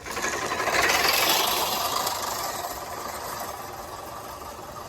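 American push reel lawn mower rolling over grass, its spinning reel blades whirring and clattering as they cut. It is loudest about a second in, then fades.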